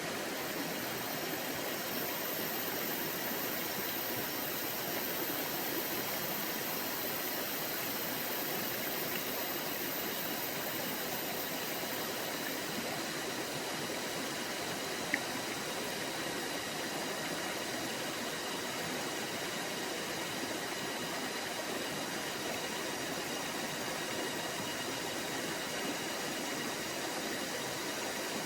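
Forest stream flowing: a steady, even rush of running water. A single short click sounds about halfway through.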